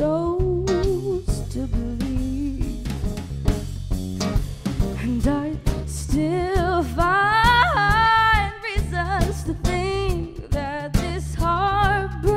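Live band playing: a woman singing lead over her acoustic guitar, an electric bass and a drum kit. Her voice holds long, wavering notes and climbs highest about seven seconds in.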